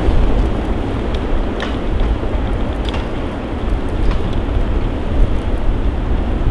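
Strong blizzard wind buffeting the microphone: a heavy low rumble under a steady rush of noise, rising and falling in gusts, with a few faint ticks.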